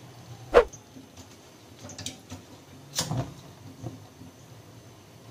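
Two sharp clicks about two and a half seconds apart, with a few fainter ticks between them, from a hand working the control knob of a lit gas stove burner.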